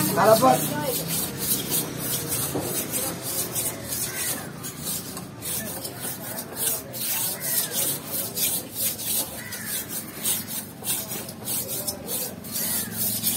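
Steel knife blade being sharpened on a whetstone: quick, repeated scraping strokes of the blade across the stone.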